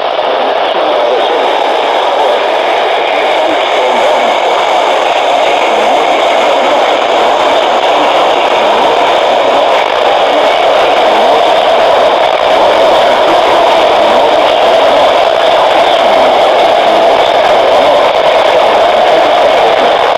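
Loud, steady radio static from a receiver: an even hiss with no clear signal coming through.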